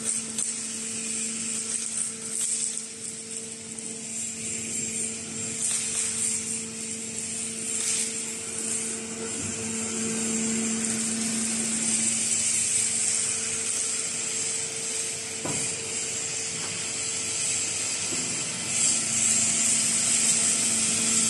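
Hydraulic tyre baler running: a steady hum from its pump motor with a high hiss over it, and now and then a sharp click or knock.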